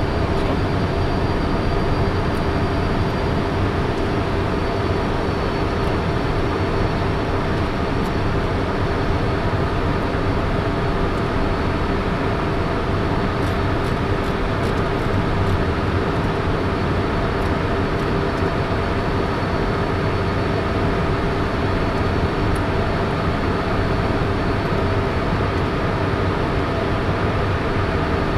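Inside the cockpit of a Cessna Citation CJ3 in its climb after takeoff: the steady noise of its twin Williams FJ44 turbofan engines and the airflow, with a few steady whining tones over it.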